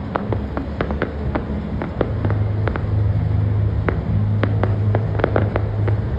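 Distant fireworks popping and crackling in quick, irregular reports over a steady low hum that grows louder about two seconds in.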